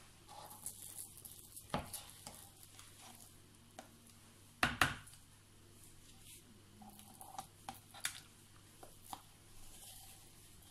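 A spoon scraping and tapping in a jug while thick chestnut and lye paste is scooped into soap oils. Two sharper knocks, about two seconds in and near the middle, stand out.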